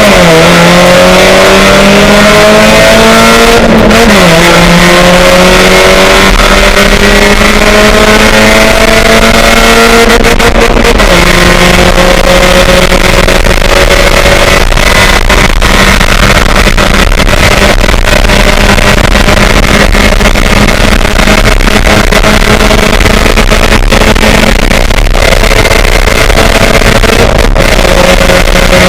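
Race car engine running hard under acceleration: its pitch climbs and drops sharply at two upshifts, a few seconds in and again about 11 seconds in, then holds at a nearly steady pitch.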